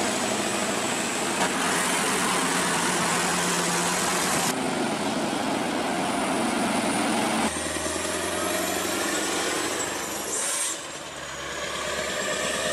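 Scania R580 heavy truck's V8 diesel engine running under load with road noise as it hauls a loaded lowboy trailer, heard in several short clips joined by abrupt cuts.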